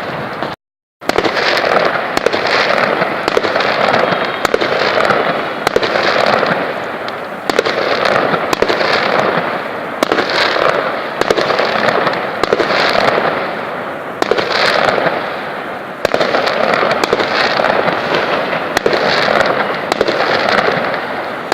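Fireworks going off without pause: rapid bangs and crackling that swell in waves about once a second. The sound drops out completely for a moment about half a second in.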